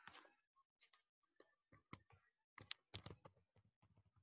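Faint computer keyboard typing: a few scattered keystrokes, most of them about two to three seconds in.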